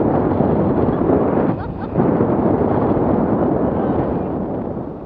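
Heavy wind noise on the camera microphone from the airflow of a tandem paraglider in flight: a steady rushing buffeting that eases briefly about a second and a half in.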